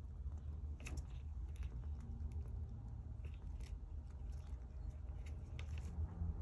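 Light, irregular clicks and taps of small tools and parts on an opened iPod Classic, about nine in the space of a few seconds, over a steady low hum.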